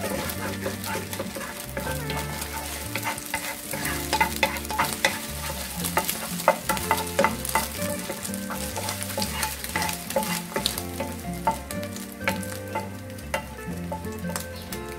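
Eggs sizzling in butter in a nonstick frying pan while a wooden spatula stirs and scrambles them, with frequent sharp taps and scrapes of the spatula against the pan.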